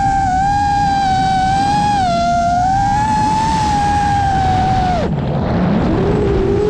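FPV quadcopter's motors and propellers whining over wind rush. The pitch holds high and wavers with the throttle, drops away suddenly about five seconds in as the throttle is cut, then climbs again near the end.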